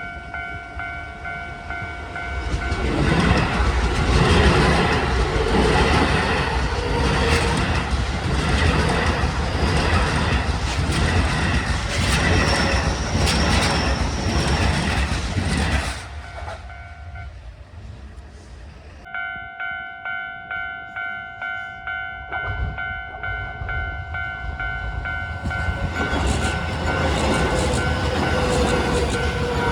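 Japanese level-crossing alarm bell ringing with steady repeated tones while a Keio 9000 series electric train passes over the crossing, its wheels clattering over the rail joints. The bell stops for a couple of seconds past the middle, then rings again in pulses about twice a second as another train approaches and passes near the end.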